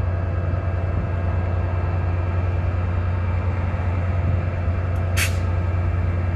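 Bombardier ALP-45A dual-mode locomotive's diesel engines running steadily with a deep hum while the train stands at the platform. A short burst of hissing air sounds about five seconds in.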